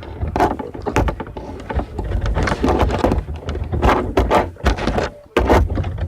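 Close handling noise: irregular clicks, knocks and rustles of small items being handled right by the microphone, over a low rumble.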